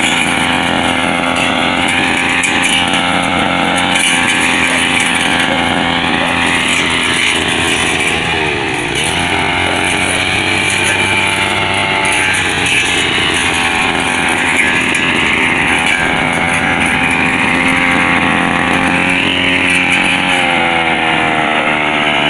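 Kawasaki TG25 two-stroke brushcutter running at high throttle, its metal blade cutting through weeds. The engine pitch dips and recovers a few times as the blade bites into the growth, around eight seconds in and again near the end.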